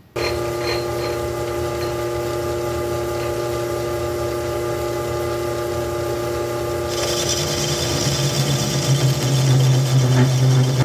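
Old belt-driven metal lathe running with a steady multi-tone hum. About seven seconds in a hiss joins as the tool starts cutting steel, and the low hum grows stronger as the lathe struggles a little cutting through a weld.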